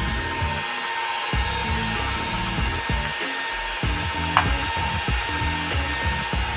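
KitchenAid stand mixer motor running steadily with its wire whisk beating cake batter in a steel bowl, with one sharp click a little over four seconds in.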